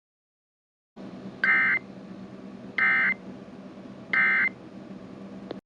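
Emergency Alert System end-of-message data bursts: three short, screechy digital tone bursts about a second and a half apart, over a faint steady hum and hiss that cuts off sharply just after the last burst. They signal the end of the alert.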